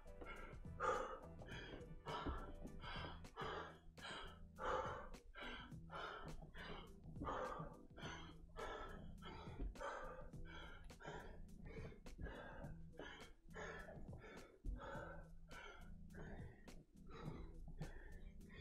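A person breathing hard and rhythmically from exertion, about three breaths every two seconds, over quiet background music.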